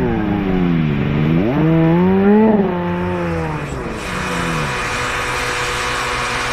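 Snowmobile engine revving, rising and falling in pitch several times. From about four seconds in, a steadier, higher-pitched engine sound comes in: the crashed, riderless sled still running with its throttle stuck wide open.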